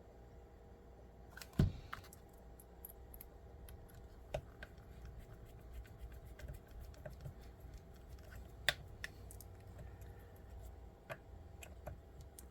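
Scattered small clicks and light taps of tools and small parts being handled while an RC crawler chassis kit is assembled. One louder knock comes about one and a half seconds in, and a sharp click near the nine-second mark.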